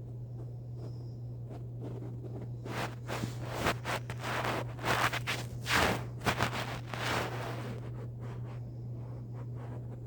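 Room air conditioner running with a steady low hum. From about three seconds in, a few seconds of louder rustling and scraping rise over it, then die away.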